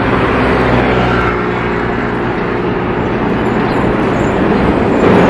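Boeing 737-500's CFM56-3 jet engines at take-off thrust as the airliner climbs away: a steady, loud roar with a few held low tones in it.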